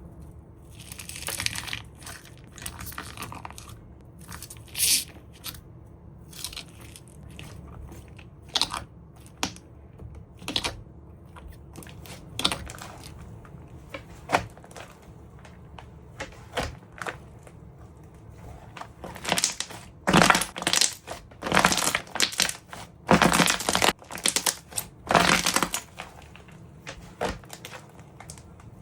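Slime ASMR: slime being pressed and squeezed by hand, giving short crunchy, crackling squishes one after another, with a run of louder, closer-spaced squeezes about twenty seconds in.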